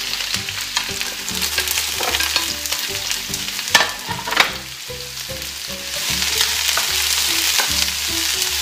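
Sliced onion and peppers sizzling as they fry in hot coconut oil in a frying pan, with small clicks and scrapes as they are stirred. Two louder sharp knocks come about four seconds in.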